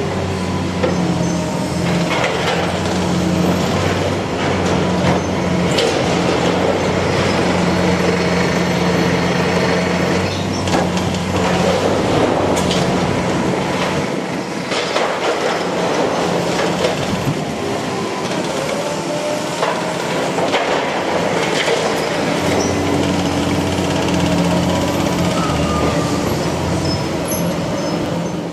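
Liebherr 954 demolition excavator's diesel engine running steadily under load while its attachment tears into steel roof trusses and sheet-metal roofing: continuous irregular crunching, clanking and scraping of bending and falling metal.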